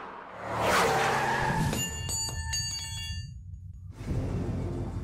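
Title-logo sound effects: a whoosh, then a ringing metallic chime with rapid clicks for about a second and a half. A low rumble comes in about four seconds in.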